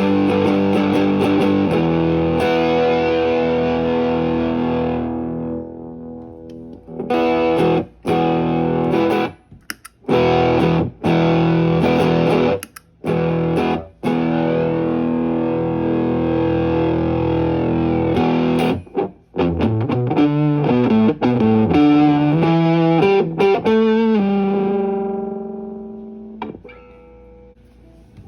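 Electric guitar played through a Caline CP-47 Pressure Tank compressor pedal. A held chord rings out and slowly fades, then come short chords that cut off sharply, more held chords, a quick run of single notes, and a last note left to fade away.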